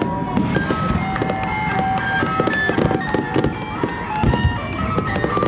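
Fireworks going off in many sharp pops and bangs, with a tune of short held notes stepping in pitch playing throughout.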